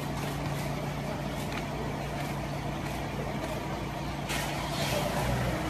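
Steady low mechanical hum with an even background hiss. A rush of louder hiss comes in about four seconds in.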